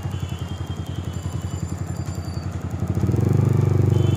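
Yamaha R15 V3 motorcycle's single-cylinder engine running with a fast, even pulsing beat while riding through traffic, growing louder about three seconds in.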